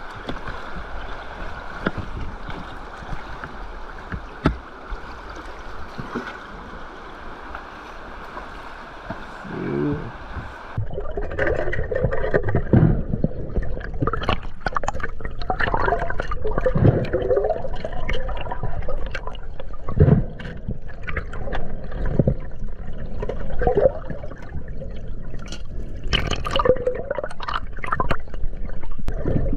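Steady rushing water for about ten seconds, then, after a sudden change, irregular gurgling and splashing of river water.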